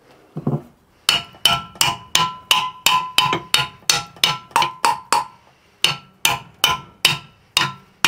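Small hammer tapping the shell of a riveted steam boiler in a hammer test, about three sharp ringing taps a second with a brief pause a little past halfway. The metal rings clearly under each blow, and the boiler is judged to have passed the hammer test.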